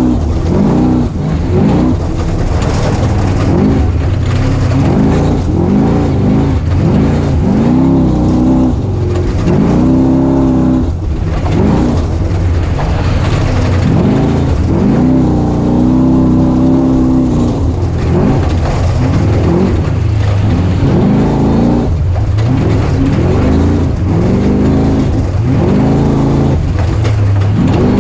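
Dirt bike engine heard from on board, revving up and rolling off again and again as the rider works the throttle and gears around an off-road course.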